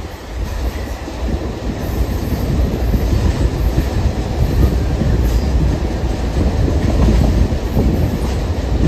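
Train cars rolling over jointed rail, the wheels clacking at the rail joints over a heavy rumble, growing louder over the first couple of seconds and then holding steady.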